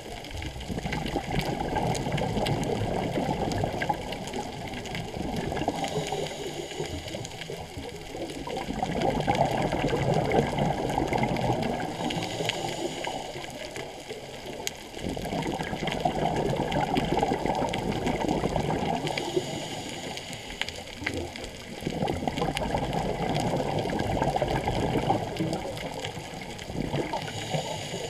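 Scuba regulator exhaust bubbles from a diver breathing underwater: a low bubbling rumble that swells with each exhale and fades between breaths, about five breaths, one every five or six seconds.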